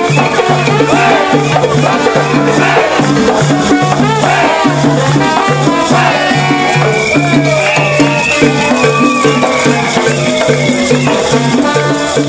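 Live plena street band: pandero hand drums keeping a steady beat under trombones, with many maracas shaking through the crowd and voices singing and shouting along.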